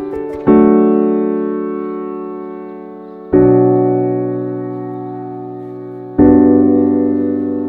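Background music: three slow piano chords, one struck about every three seconds, each left to ring and fade away.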